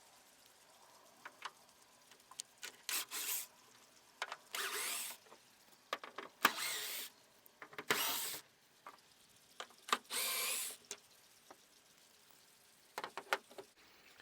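Power drill/driver running in about five short bursts, each under a second, backing out the bolts that hold a plastic truck-bed corner piece, with a few small clicks between the bursts.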